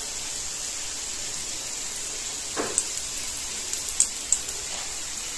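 Oats cutlets shallow-frying in oil in a flat pan: a steady fine sizzle. A few sharp clicks come in the second half as cooked cutlets are lifted out with metal tongs.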